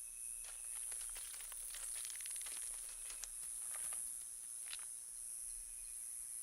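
Quiet outdoor ambience: a steady high hiss with scattered crackling rustles over the first five seconds.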